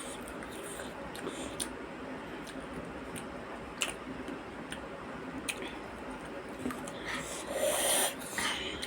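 Quiet eating sounds: chewing with a few sharp light clicks, like utensils on a dish, and a louder, noisier stretch lasting under a second about seven and a half seconds in.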